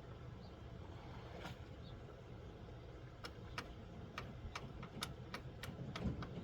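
A run of about a dozen sharp clicks and taps, starting about halfway in, from parts and tools being handled while fitting the tilt/run lock lever on a 1973 Johnson 50 hp outboard.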